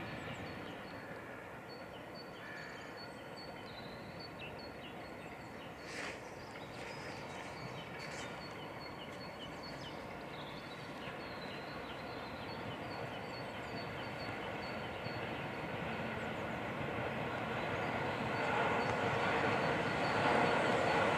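Steam locomotive running tender-first with its train of coaches as it approaches, a broad rumble that grows steadily louder and is loudest near the end.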